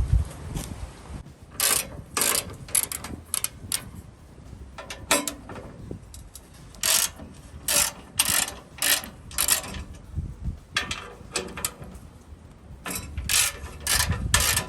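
Hand tools working a protection clip off the metal bull bar: a run of short, uneven clicks and scrapes, at times about two a second.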